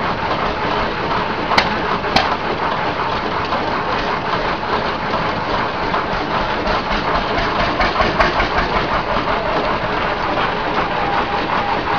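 Vintage engine machinery running steadily with a dense, fast mechanical clatter. Two sharper clicks come about one and a half and two seconds in, and a faint steady tone joins near the end.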